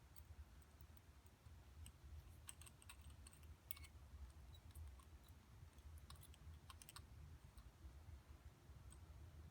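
Near silence: a faint low hum with scattered light clicks at irregular intervals.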